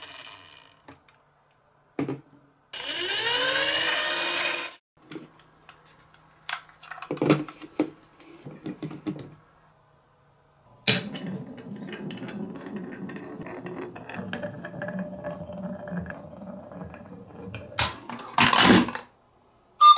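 A glass marble rolling along a carved wooden marble-run slope, a steady low rumble with a few knocks for about seven seconds, ending in a louder clatter as it runs down the plastic chute into the goal box. Before it, a few clicks and a few seconds of whirring.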